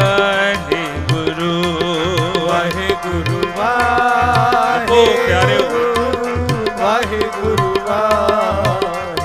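Sikh kirtan music: harmonium and tabla playing a steady rhythm under a man's voice singing a long, ornamented melodic line.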